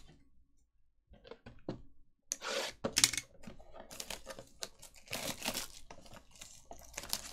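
Clear plastic shrink wrap being torn and peeled off a trading-card box, crinkling and tearing in a quick run of bursts from about two seconds in, after a few light knocks.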